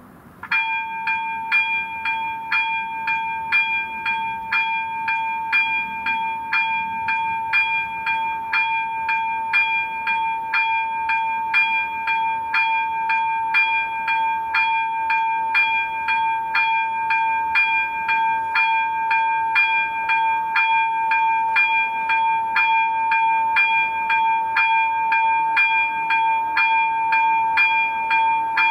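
Level crossing warning bell starts ringing about half a second in, with evenly repeated strikes about twice a second over a steady ringing tone: the crossing has been activated, signalling an approaching train.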